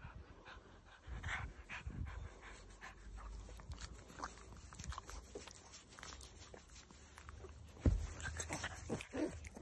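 Boston Terrier panting and breathing faintly while being scratched, with a single thump about eight seconds in as the dog twists around.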